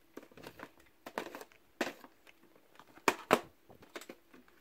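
Plastic DVD cases clicking, knocking and scraping against each other as a case is forced back into a tightly packed shelf and won't go in: a string of irregular clicks, loudest about three seconds in.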